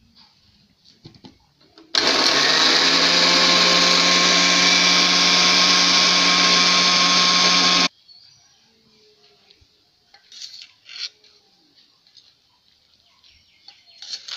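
Electric blender running at one steady speed for about six seconds, switched on and off abruptly, likely blending jackfruit into a pulp for toffee. A few faint clinks of utensils follow.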